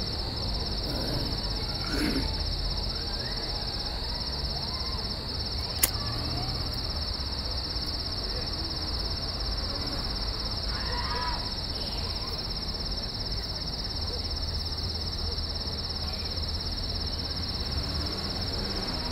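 Steady night chorus of crickets, an unbroken high-pitched trill, with a single sharp click about six seconds in.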